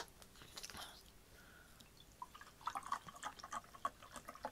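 Water being poured from a bottle into a glass mug, a quiet gurgling splash for the last two seconds or so, after a few faint clicks near the start.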